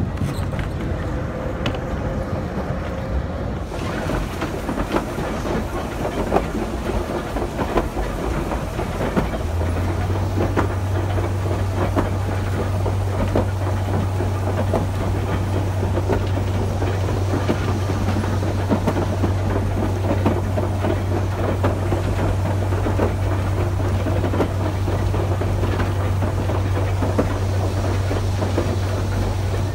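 Electric tram running along the track, its wheels clicking over the rail joints amid steady running noise. A steady low hum comes in about ten seconds in.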